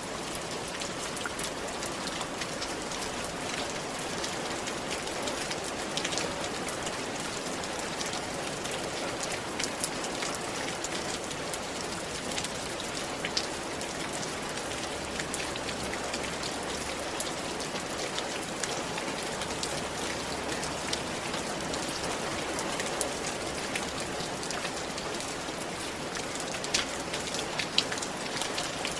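Steady rain falling on a roof: a dense, even patter with distinct sharper drop hits scattered through it.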